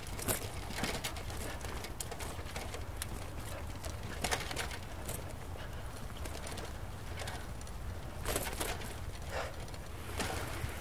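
Bicycle being ridden along an unpaved trail: a steady low wind rumble on the microphone, with scattered rattles and knocks from the bike over the rough surface, loudest about four seconds in and again near the end.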